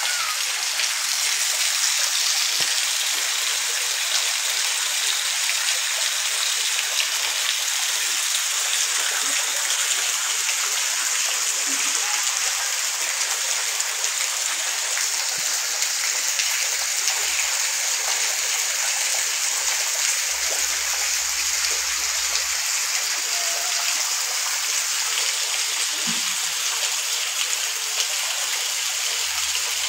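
Heavy rain pouring steadily, an even hiss of drops splashing on wet ground.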